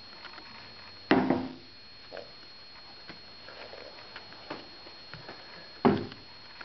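Two sharp knocks about five seconds apart, with a few light clicks between them, over a faint steady high whine.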